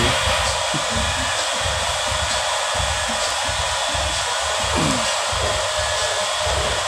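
A steady rushing hiss of moving air, even and unbroken, with an uneven low rumble underneath that comes and goes.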